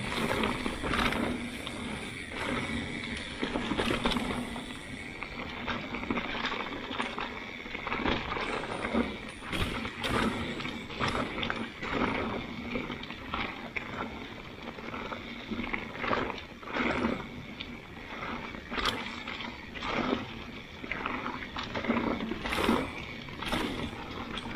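Mountain bike riding fast down a dry-leaf-covered dirt singletrack: tyres rolling over leaves and dirt in a steady rushing noise, broken by frequent sharp rattles and knocks as the bike hits bumps.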